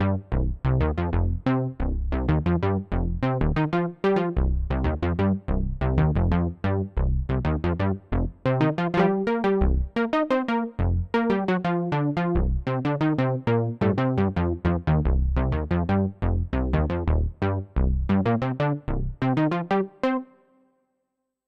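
ASM Hydrasynth digital synthesizer played live from its keyboard: a quick run of short, sharp-edged notes, about four a second, over a low bass line. It stops about a second before the end.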